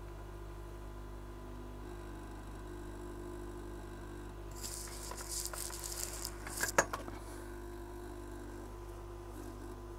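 Steady electrical hum from the repair bench. About halfway through come a couple of seconds of rustling and light clicking as small tools or parts are handled, ending in one sharp click, the loudest sound.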